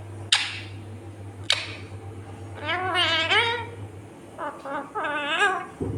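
Indian ringneck parrot calling: two short, sharp screeches, then two warbling, talk-like phrases.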